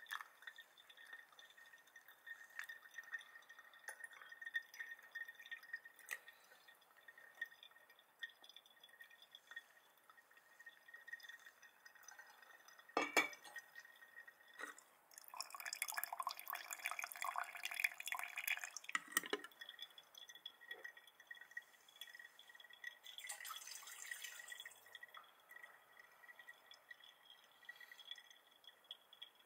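Brewed coffee dripping from a pour-over dripper's paper filter into a glass server, in small irregular drips over a faint steady high whine. A sharp knock comes about 13 seconds in and another near 19 seconds, with a few seconds of rustling noise between them.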